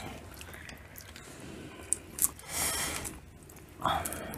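Close-up eating sounds of crab and shrimp eaten by hand: chewing and wet squelching, with a few faint clicks.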